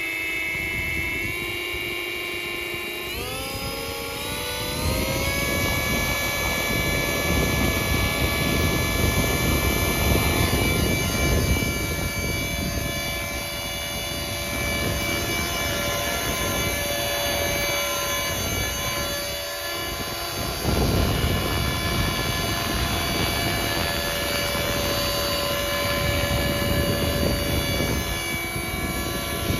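Electric RC helicopter with Trex 450 mechanics: its brushless motor and main rotor whine at a low steady pitch, then spool up about three to four seconds in to a higher, steady whine. A rushing noise sits under the whine throughout.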